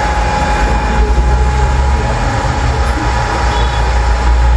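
BGA rework station running its reflow heating profile on a processor: a steady rush of hot air from the top heater with a deep hum and a thin, steady whine.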